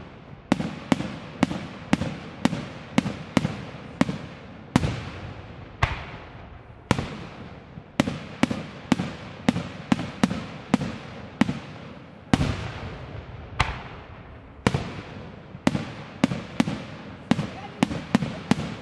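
Aerial firework shells bursting in quick succession: a rapid, irregular run of sharp bangs, roughly two a second, each trailing off in an echoing tail.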